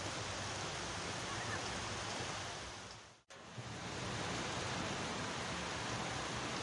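Steady rushing noise of storm wind. It fades out to silence for an instant a little over three seconds in, then comes straight back.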